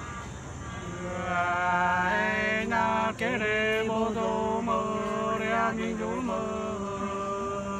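Two men singing sli, the Nùng antiphonal folk love-song, unaccompanied. They start about a second in and hold long, drawn-out notes that waver and bend in pitch.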